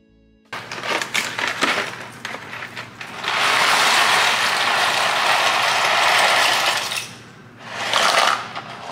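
Dry penne pasta rattling out of a cardboard box into a pot. It starts in uneven shakes, then pours in a steady stream, and ends with two short shakes as the last pieces come out.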